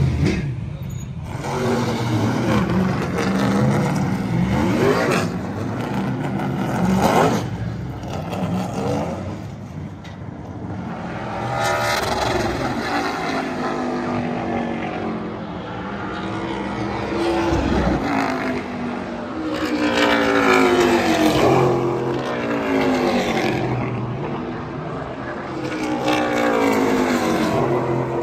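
Super late model race car engines at full throttle, passing by on track one after another, each rising and then falling in pitch as it goes by.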